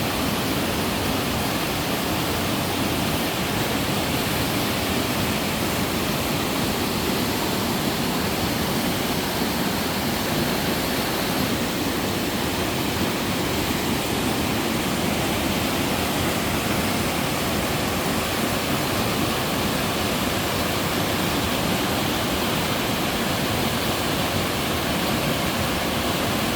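Waterfall in a mountain stream: water pouring over rock and splashing, a steady, unbroken rushing.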